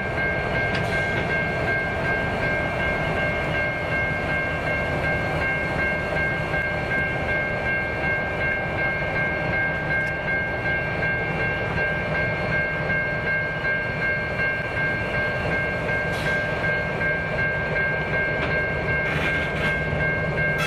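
Diesel-electric freight locomotives running at low speed while shunting: a steady engine rumble with a constant high-pitched whine held throughout.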